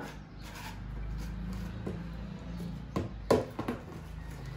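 Kitchen handling noises: a few short knocks clustered about three seconds in, over a low steady hum.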